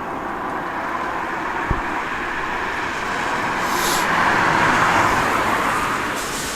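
A car driving past on a road, its tyre and engine noise swelling to a peak about four to five seconds in and then fading.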